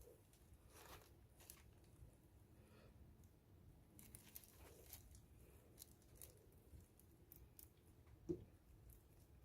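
Near silence, with faint scattered clicks and light handling noises and one soft knock about eight seconds in.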